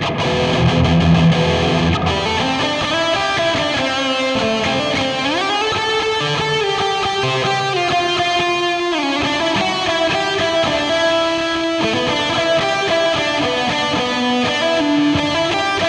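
Electric guitar played through a Digitech RP1000 multi-effects pedalboard on a factory preset. A strummed chord opens, followed by long sustained single notes with a slide up about five seconds in and a slide down near the ninth second.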